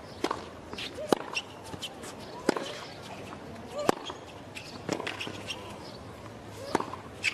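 A tennis rally on a hard court: a ball struck back and forth with racquets, about six sharp hits at roughly one every second and a half.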